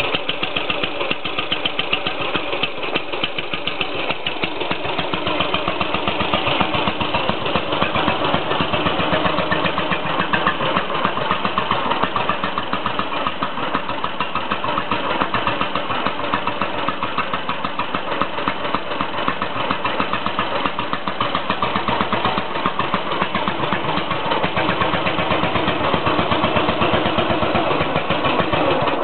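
A 1938 Ardie RBU 350's 346 cc single-cylinder four-stroke side-valve engine running steadily on its first test run after restoration, with a rapid, even firing beat that grows a little louder near the end.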